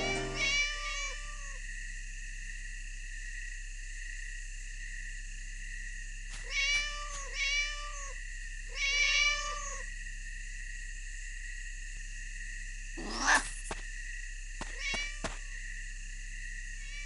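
Cat meowing, several short arched meows spread out with pauses between them, over a steady high-pitched tone. A short rising whoosh about thirteen seconds in is the loudest sound, followed by a few faint clicks.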